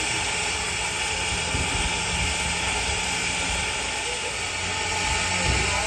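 1906 Baldwin 4-8-0 steam locomotive standing at rest, giving off a steady hiss of steam over a low rumble.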